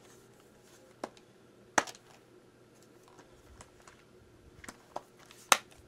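A few scattered sharp plastic clicks and taps from DVD set packaging and disc holders being handled, with quiet room tone between them.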